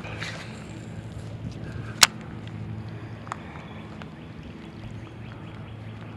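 A steady low engine drone runs throughout. One sharp, loud click comes about two seconds in, and a fainter click about a second later.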